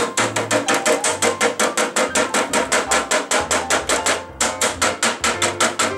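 Small hammer tapping rapidly on a dado-cut fire brick, knocking off the brittle leftover material that the wet saw cut did not remove. The taps come quickly and evenly, about seven a second, with a brief pause about four seconds in.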